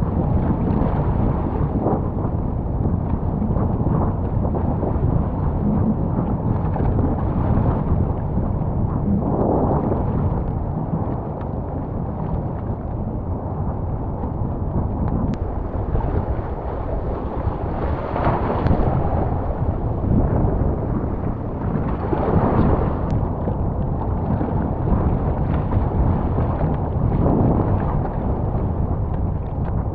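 Storm at sea heard from a small raft: a loud, steady rush and low rumble of wind and heavy rain, with waves surging up louder a few times.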